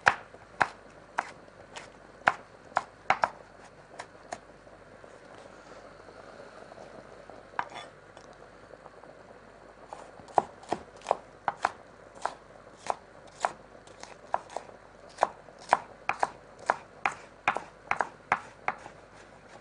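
Chef's knife chopping green bell pepper on a wooden cutting board: sharp knocks of the blade against the board, about two a second. The chopping pauses for several seconds in the middle, then resumes as a steady run of chops through the end.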